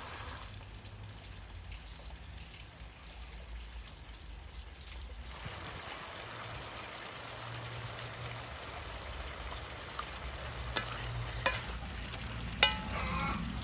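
Chunks of lamb and fat sizzling as they fry in a large pot, stirred with a wooden spoon. The frying grows louder about halfway through, and a few sharp knocks of the spoon against the pot come near the end.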